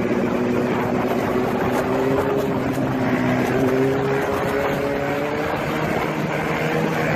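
Motorcycle engine running steadily, its pitch drifting gently up and down with the throttle, over road and wind noise.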